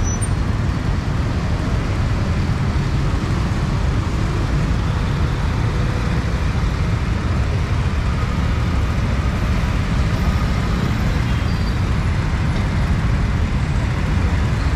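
Steady street traffic noise, an even low rumble with no speech over it.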